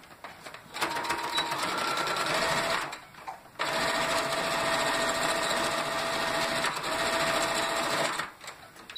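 Electric sewing machine running, stitching a seam across layers of fabric in two steady stretches, about two seconds and then about four and a half seconds, with a brief stop between.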